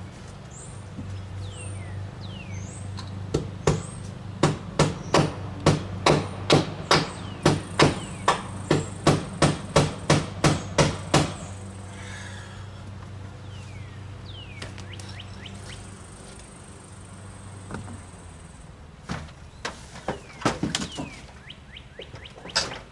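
Hammer blows driving a nail into wood: a steady run of about twenty strikes at roughly two and a half a second, then a few scattered blows near the end. Birds chirp in between over a steady low hum.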